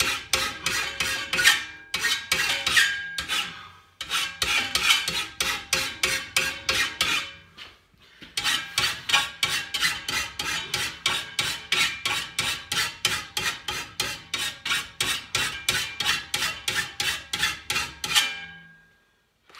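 A hand flat file is being pushed along the teeth of a steel brushcutter grass blade clamped in a vise, sharpening it. The file strokes come in a quick, even rhythm of about three a second. They pause twice briefly and stop shortly before the end.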